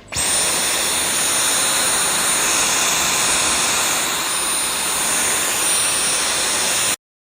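Dyson V12 Detect Slim cordless stick vacuum switching on and running: a loud rush of air with a high steady whine that climbs to pitch in the first instant, then cuts off abruptly near the end.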